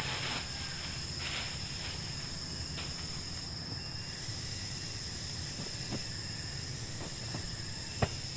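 Night insects keeping up a steady chorus of several high, even tones, with a few light clicks and one sharper tap about eight seconds in.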